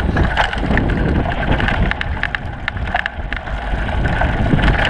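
Mountain bike descending a dirt trail, picked up by a GoPro mounted on the bike: a steady low wind rumble on the microphone and tyre noise on dirt, with frequent short clacks and rattles from the bike.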